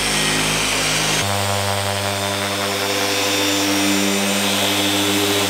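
Electric car polisher running with a foam pad on painted bodywork, a steady motor hum that steps up to a higher speed about a second in.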